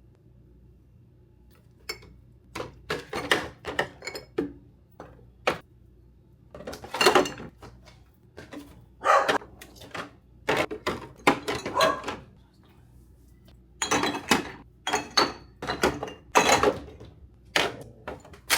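Dishes and food containers clattering and knocking as they are handled and set down, in irregular bursts starting about two seconds in.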